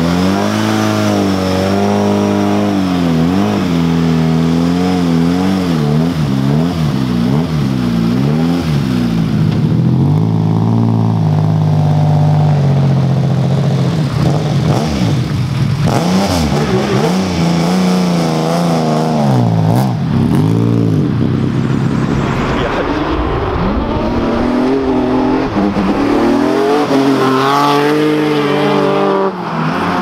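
Rally car engine revving in repeated throttle blips, its note rising and falling about once a second, then held higher for a few seconds near the middle, with more rises and falls later.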